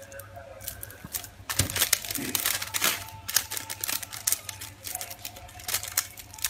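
Clear BOPP plastic wrapping film crinkling and crackling in irregular bursts as it is handled and folded around a package by hand.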